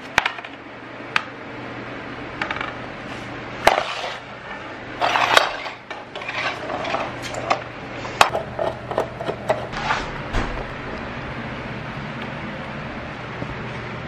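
Sharp clicks, taps and clatter of plastic and metal parts being handled and screwed together: a broom handle threaded into its head and a paint roller frame fitted to its handle, knocking against a wooden floor. The tapping stops about ten seconds in, leaving a steady low hum.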